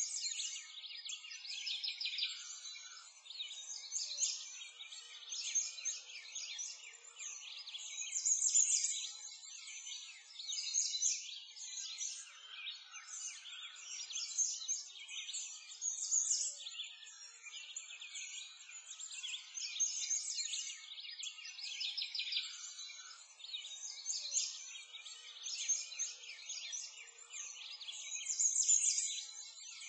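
Many small birds chirping and singing at once in a dense, high-pitched chorus, swelling and fading every second or two.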